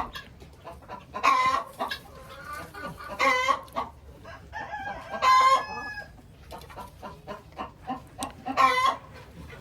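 A flock of chickens calling: four loud, drawn-out calls spaced roughly two to three seconds apart, with softer clucking in between.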